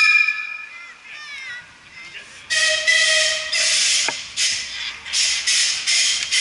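Steam launch whistles: a short, chord-like whistle blast right at the start, then from about two and a half seconds a lower whistle sounding in a run of hissing blasts with short breaks between them.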